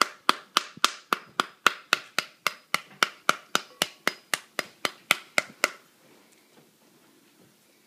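Metal spoon whacking the rind of an upside-down, scored pomegranate to knock the seeds out, a quick, even run of sharp knocks about three or four a second. The knocks stop about two-thirds of the way through.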